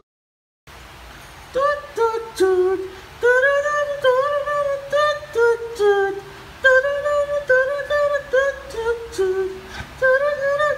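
Background music: a single melody line of short held notes in repeating phrases, starting less than a second in after a brief silence.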